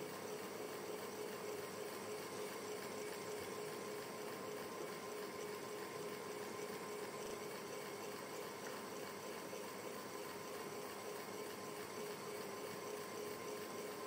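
Electric fan running steadily indoors: a soft, continuous whoosh of moving air with a faint, even motor hum.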